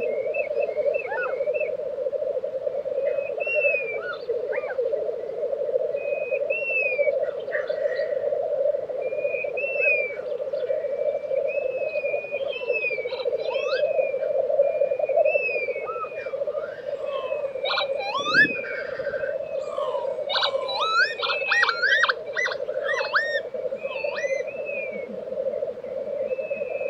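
Black grouse lek: many displaying males keep up a continuous bubbling, rolling chorus, with whistled calls of other birds over it that grow busiest about three-quarters of the way in. A single low thump comes about two-thirds of the way in.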